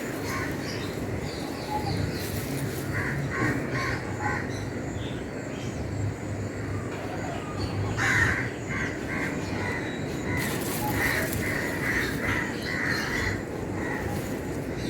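Crows cawing repeatedly in clusters of short calls, over a steady rustling noise.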